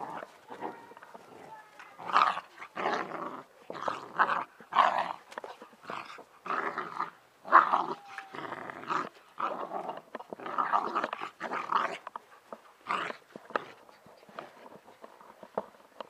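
Two Bernese Mountain Dog puppies growling at each other while play-wrestling, in a rapid run of short rough bursts. The growls start about two seconds in and stop a few seconds before the end.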